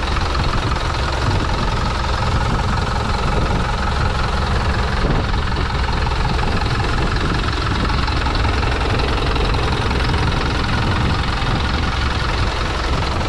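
A 2019 Hino 300-916 truck's four-cylinder turbodiesel engine idling steadily at an even speed, heard close up at the open engine bay.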